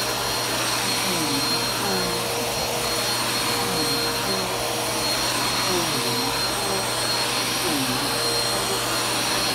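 Bagless upright vacuum cleaner running on carpet: a loud, steady rushing of air under a constant motor whine made of several high steady tones.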